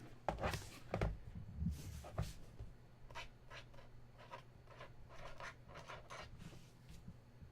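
Irregular light clicking of keys on a computer keyboard as cards are typed into a spreadsheet, over a steady low hum.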